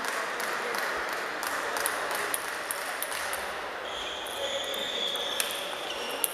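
Table tennis ball being struck back and forth in a rally, sharp irregular ticks off the paddles and table over steady background noise in a sports hall.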